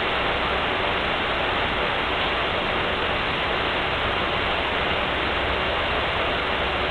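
Steady, even hiss with no breaks or changes in level.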